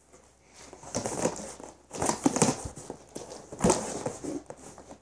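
Paper leaflets and a cardboard box being handled and rummaged through: rustling and scraping in several bursts, the loudest about two and three and a half seconds in.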